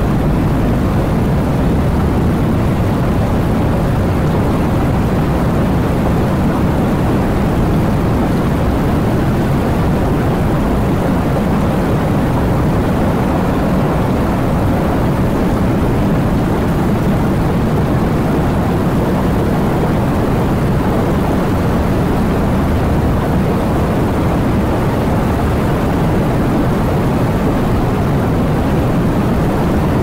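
Steady, unbroken rain noise, dense and muffled, with a deep rumble and little hiss.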